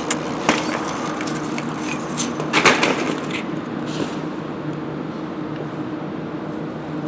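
A few sharp knocks, then a louder clatter of impacts about two and a half seconds in, over a steady low hum.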